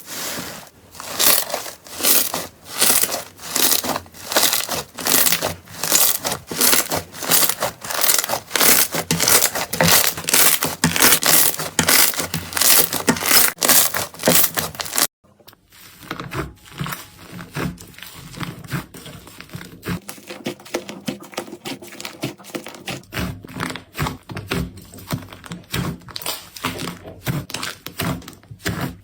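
Slime being squeezed and pressed by hand, crackling and popping in rhythmic squishes about twice a second. After a sudden cut about halfway through, a quieter, denser crackling of slime being worked.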